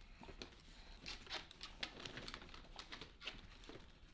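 Faint, irregular crackling, rustling and soft clicks of potting soil and roots being handled as a trailing houseplant is worked out of its pot by hand.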